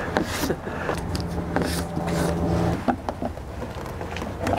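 Scattered small clicks and scrapes of a 2018 Ford Raptor's plastic fender-flare trim panel being worked loose from its snap clips by hand and with a small tool, over a steady low hum.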